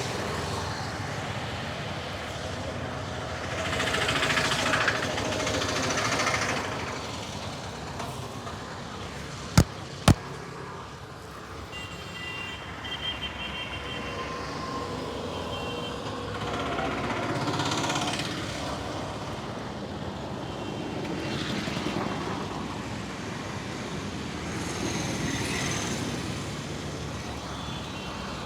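Street traffic noise that swells and fades several times. About a third of the way through it is broken by two sharp, loud cracks about half a second apart.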